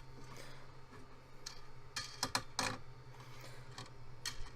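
Hand-levelling of a 3D printer's bed: a few short clicks and light scrapes from the adjustment knobs and bed being handled, over a steady low hum.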